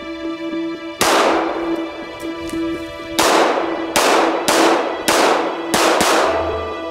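Glock 19 9mm pistol firing: one shot about a second in, then a string of five shots about half a second to a second apart, each trailing off in a ringing echo. Background music with a steady pulsing beat plays underneath.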